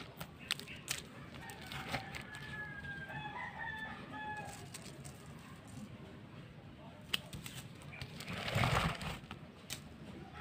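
Nylon fishing line handled near the microphone, with scattered small clicks and a louder rustle about eight and a half seconds in. A bird calls in the background from about two to five seconds in.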